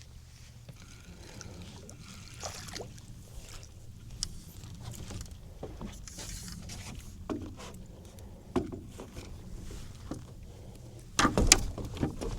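Water sloshing with small knocks and clicks while a fish is reeled in, then a short, loud burst of noise near the end as the catch is landed.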